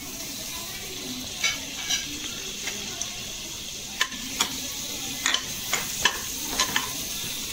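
Butter melting and sizzling in the base of a hot pressure cooker, a steady hiss, with a perforated metal skimmer repeatedly clicking and scraping against the pot as it spreads the butter.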